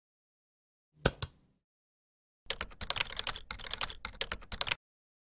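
Two quick clicks about a second in, then about two seconds of rapid typing on a computer keyboard.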